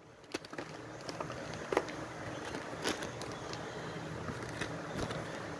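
Faint steady hiss with scattered light clicks and taps at irregular intervals.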